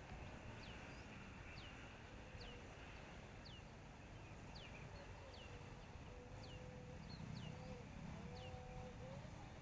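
Faint outdoor sound: a bird giving short, falling chirps about once a second, over the thin distant hum of a small 3-inch FPV quadcopter's motors that comes and goes as it flies away.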